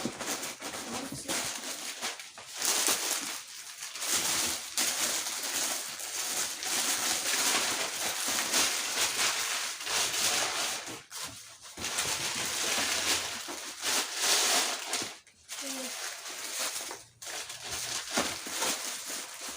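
Baby-swaddle packaging and cloth rustling and crinkling as they are handled, in uneven surges.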